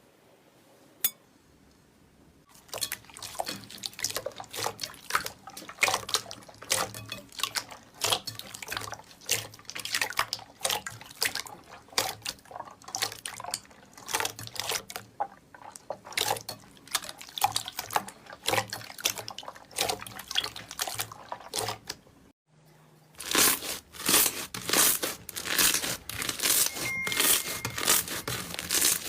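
Slime being squeezed and worked by hand, a dense run of wet crackling clicks and pops. There is a short break about 22 seconds in, then more of the same, louder.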